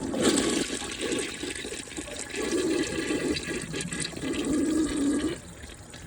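1968 Rockport toilet flushing: a rush of water into the bowl for about five seconds, dropping to a quieter running near the end.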